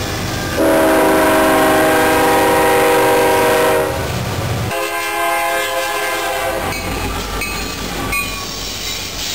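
Freight train rumbling past on the rails, with a locomotive air horn sounding one long chord about half a second in. After a sudden change a few seconds later, a second, weaker horn blast sounds over a passing train.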